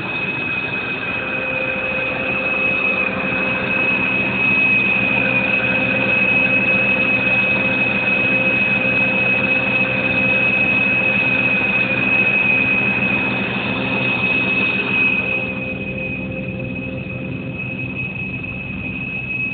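ProChem Apex truck-mounted carpet cleaning machine running steadily: a high-pitched whine over a low engine hum with a rushing noise. The rushing noise drops away about fifteen seconds in while the whine carries on.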